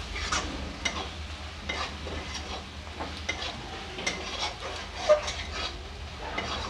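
Metal spatula stirring and scraping frying onion-capsicum masala, with the dry spice powders just mixed in, around a metal kadai. The oil sizzles steadily under irregular scrapes and clicks of the spatula on the pan, the sharpest click about five seconds in.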